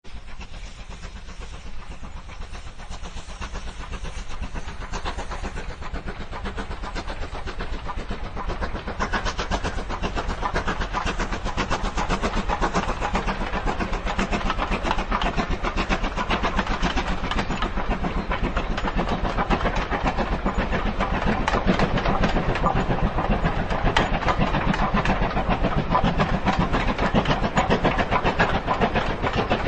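Steam train running on rails: a dense, rapid rhythm of chuffing and wheel clatter over a steady hiss, growing louder over the first twelve seconds or so and then holding steady.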